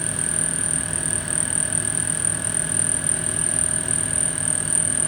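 Sieg SX2 mini mill running steadily, with a high steady whine from its motor and drive over a lower hum.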